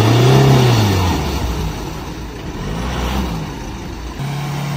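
Off-road vehicle's engine revving in mud: it revs up and falls back in the first second, revs again about three seconds in, then settles into a steady note near the end.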